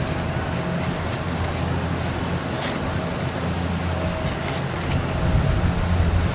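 Carbon-steel bushcraft knife shaving curls off a stick to make a feather stick: irregular scraping strokes of blade on wood, over a steady low rumble.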